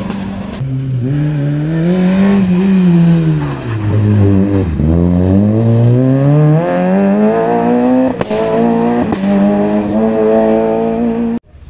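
Rally car engine working through a hairpin: the revs rise, then fall away to their lowest about five seconds in as it slows for the bend, then climb again as it accelerates away, with two quick upshifts. The sound cuts off suddenly near the end.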